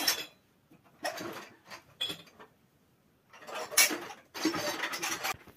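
Ceramic bowls and dishes clinking against one another and rattling in plastic crates as they are sorted, in several short bursts with pauses between, loudest near four seconds in.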